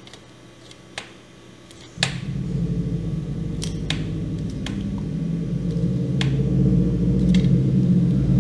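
Scattered sharp clicks, then about two seconds in a steady low electrical hum starts abruptly and slowly gets louder: a bench DC power supply humming as it feeds current into a shorted laptop motherboard line.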